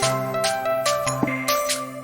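Background music: a gentle instrumental track with sustained notes and a light, even beat of about two to three strokes a second.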